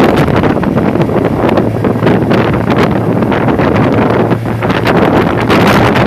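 Hurricane wind gusting hard and buffeting the microphone in a loud, continuous rush, with short bursts of stronger gusts.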